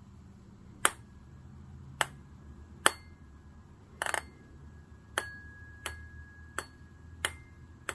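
A ping pong ball on a string knocking against the tines of a vibrating tuning fork: about nine sharp clicks, roughly one a second, with a quick double knock about four seconds in. A faint high ringing tone runs between the later clicks.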